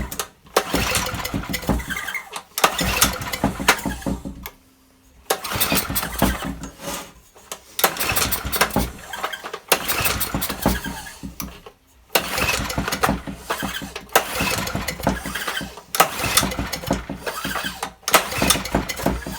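Old Honda generator's small engine being pull-started over and over by its recoil cord: a string of cranking bursts a few seconds apart, each dying away in a short gap. It pops and fires but doesn't keep running, which the owner puts down to the carburettor.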